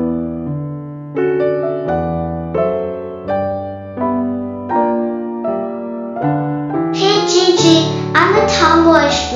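Background music: electric piano playing slow, sustained chords, joined about seven seconds in by a high voice singing.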